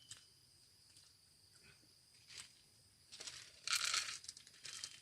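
Rustling and crinkling of something being handled or stepped on, starting about three seconds in and lasting under two seconds, loudest near its start. Underneath, insects keep up a faint, steady, high-pitched drone.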